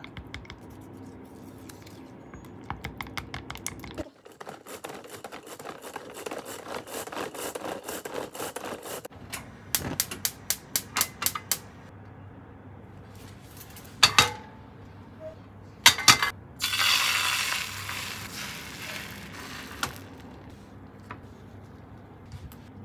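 Kitchen handling sounds during cooking: utensils and dishes clicking and knocking, with a quick run of clicks about ten seconds in and two loud sharp knocks a little later. This is followed by a hiss that lasts about three seconds.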